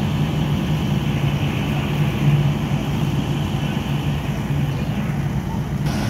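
A vehicle engine idling with a steady low drone.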